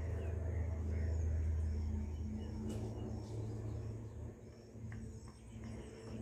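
Outdoor field ambience: a low steady rumble that falls away about four seconds in, with faint high chirping repeating about twice a second.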